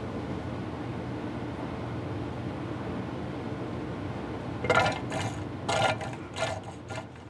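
A steady low drone, then for about the last two and a half seconds a series of short crackling, crinkling pops as a plastic gear-oil squeeze bottle is squeezed to fill the rear differential through a tube.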